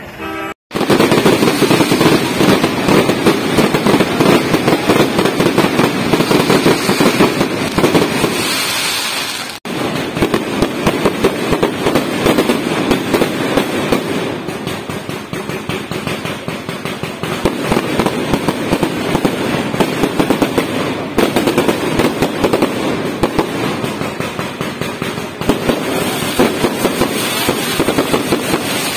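Aerial fireworks bursting overhead in a dense, unbroken barrage of rapid crackles and bangs. It starts abruptly about a second in and dips briefly about ten seconds in.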